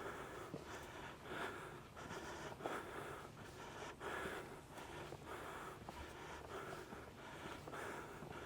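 A hiker breathing hard from the climb: faint, regular breaths about one a second.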